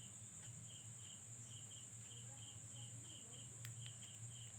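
Faint cricket chirping, about four short chirps a second, over a steady high-pitched whine and a low hum.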